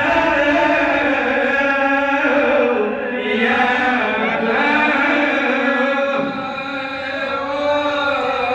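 A man's voice chanting a Pashto mourning lament (noha) for Imam Husayn, drawn out in long held notes that slowly bend in pitch.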